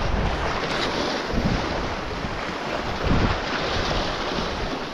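Wind buffeting the microphone, with the wash of rough sea waves underneath; the wind rumble swells in a few gusts.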